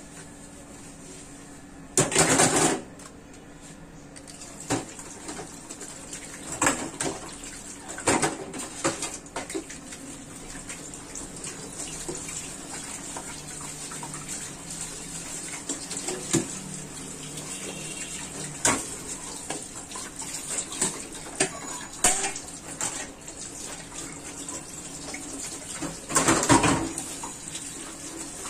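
Stainless steel dishes being washed under a running tap at a steel sink. Water runs steadily while steel bowls and a strainer clatter and knock against each other and the sink. The loudest clatters come about two seconds in and near the end.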